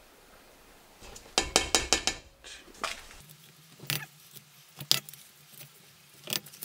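Metal measuring cup scooping plaster of Paris and knocking against a stainless-steel stockpot: a quick run of scrapes and clinks about a second and a half in, then single sharp taps every second or so.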